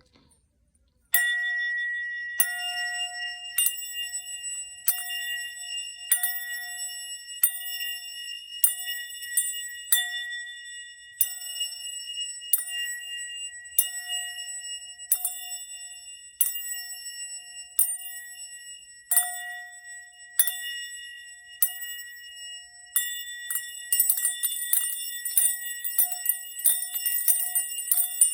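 Small metal meditation bells struck about once a second, each strike ringing on so the tones overlap into a steady shimmer. Near the end the strikes come faster and closer together.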